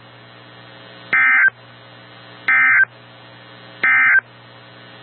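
NOAA Weather Radio EAS/SAME end-of-message data bursts: three identical short, shrill digital chirps about a second and a half apart, over a low hum, marking the end of the severe thunderstorm warning.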